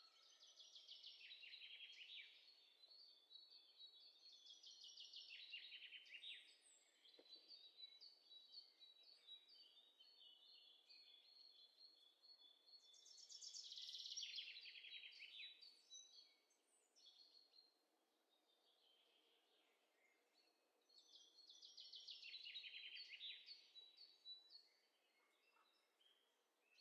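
Faint songbird singing: four bursts of rapid trilling, each a couple of seconds long, recurring every several seconds. The loudest burst comes about halfway through.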